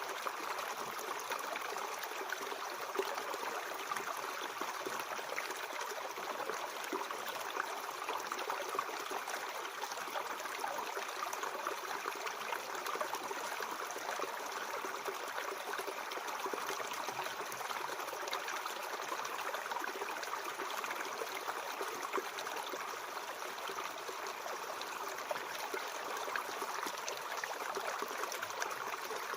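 Mountain stream running over rocks: a steady rush of flowing water with small splashes and trickles.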